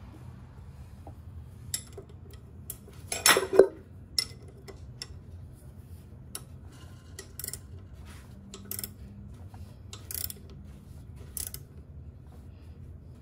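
Scattered light metallic clicks and clinks from a wrench on the crankshaft bolt as the engine is turned over by hand, with a louder cluster of clinks about three seconds in, over a low steady hum.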